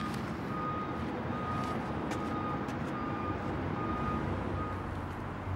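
Vehicle reversing alarm beeping evenly, a little more than once a second, over a low steady rumble.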